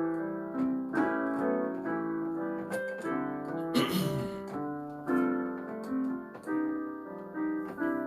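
Piano or electric keyboard playing slow sustained chords, struck roughly once a second, as a gospel hymn introduction. There is a brief noise burst about halfway through.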